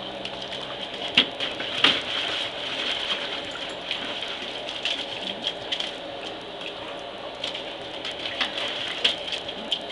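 Dogs splashing in pool water: a steady patter and slosh of water, with a few sharper splashes scattered through.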